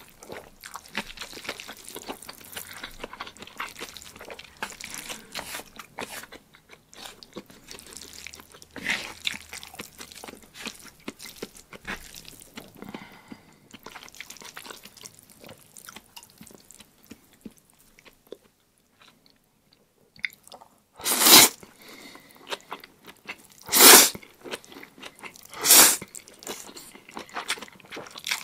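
A person chewing a mouthful of noodles in black bean sauce, with many small wet smacks and clicks. Then three loud, short slurps of noodles come a couple of seconds apart near the end.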